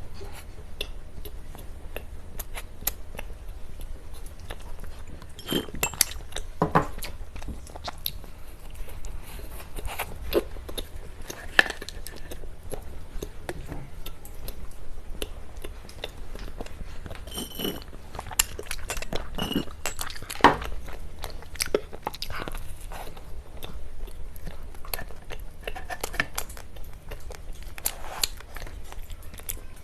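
Close-miked eating of cake: irregular wet chewing, biting and mouth clicks, with a few short ringing clinks of cutlery.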